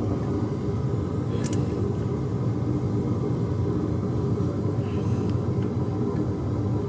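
A steady low rumble, with one faint click about one and a half seconds in.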